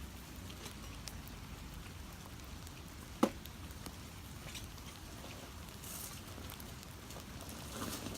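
Light rain pattering, a faint steady hiss with scattered drop ticks. One short squeak falling in pitch sounds about three seconds in.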